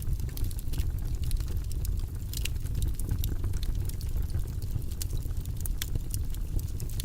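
Fire burning in a fireplace: a steady low rush of flames with frequent sharp crackles and pops scattered throughout.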